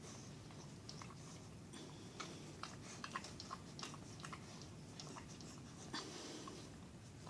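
Beagle licking and mouthing the inside of a microwave: faint, irregular wet licks and smacking clicks.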